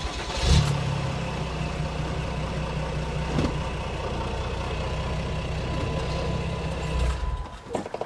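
A vehicle engine starts about half a second in, runs steadily at an idle, and stops about seven seconds in.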